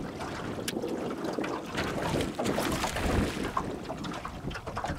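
Water sloshing and splashing around a small fishing boat, with wind buffeting the microphone and scattered small knocks and clicks.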